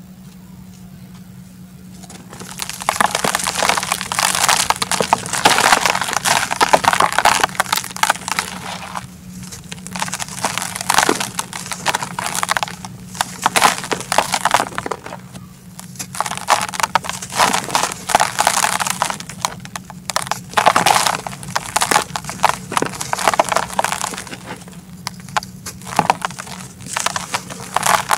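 Soft, dry red dirt chunks crushed and crumbled by hand in a plastic tub: a gritty crackling and rustle as they break and the powder sifts through the fingers. It starts about two seconds in and comes in bursts with short pauses.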